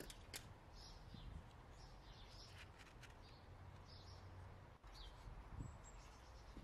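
Faint bird chirps in the background, short high calls coming every second or so, with a few soft clicks.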